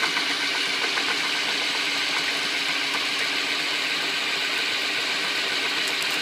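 Electric drill running steadily at speed, turning a spool on a threaded rod to wind copper wire onto it under tension.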